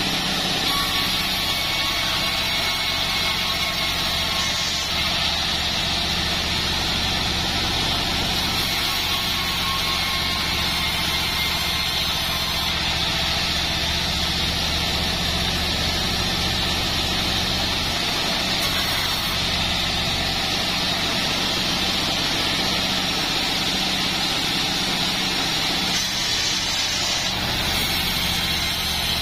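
Band sawmill running steadily as joar wood is sawn: a low, even drone from the machine's drive under a constant high hiss from the running blade.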